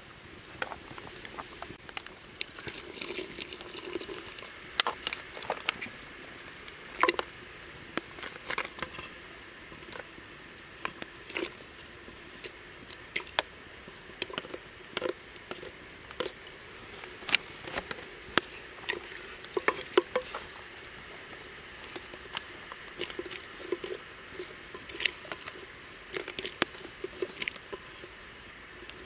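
Irregular crackles and pops from a wood fire burning under a clay cooking pot, which is steaming at a simmer, with light knocks as ingredients are tipped in from a wicker basket with a wooden ladle.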